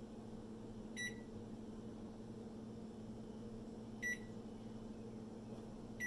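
Hamilton Beach microwave oven's keypad beeping as buttons are pressed: three short high beeps, about a second in, four seconds in and near the end, over a faint steady hum.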